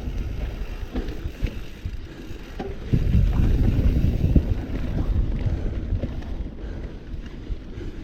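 Mountain bike riding down a rough off-piste downhill trail: tyres rumbling over dirt, with frequent sharp knocks and rattles from the bike over bumps, and wind buffeting the microphone. It eases off about two seconds in and picks up again a second later.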